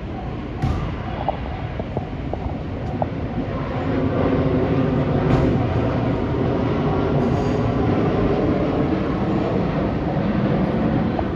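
A freight train hauled by an EF65 electric locomotive passes over a level crossing. It grows louder about four seconds in, then runs by as a steady rumble of wheels on rail. The crossing's warning bell rings throughout as a steady high tone.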